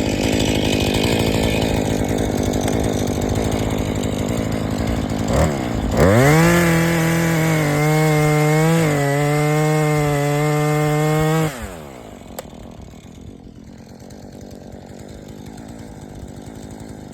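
Two-stroke chainsaw engine running, then revved up to a steady high-pitched full-throttle whine about six seconds in, dipping slightly in pitch midway. The throttle is released about five seconds later and the engine winds down, leaving it much quieter.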